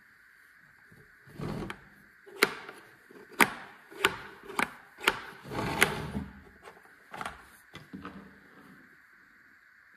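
Plastic housing of an electric bug zapper lamp being handled with cotton-gloved hands, its carry handle moved on the lid: a run of sharp plastic clicks and knocks, about six loud ones between two and six seconds in, mixed with rubbing.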